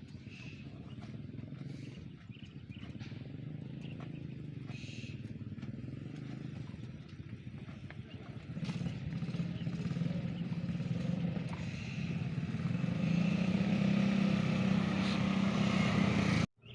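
A motor engine running steadily, growing louder from about halfway through as it comes closer, then cut off suddenly just before the end.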